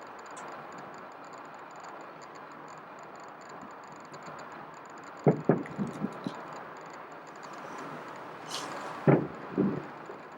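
Fireworks shells bursting. A quick cluster of bangs comes about halfway through, then a brief hiss, then another loud bang followed by a couple of smaller ones near the end, all over a steady background hiss.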